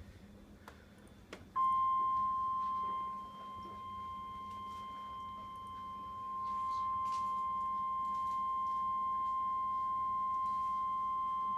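NOAA Weather Radio 1050 Hz warning alarm tone: one steady high tone that starts about a second and a half in and holds for about ten seconds, sagging in level for a few seconds midway, then cuts off. The tone signals that a warning broadcast follows and sets off tone-alert receivers.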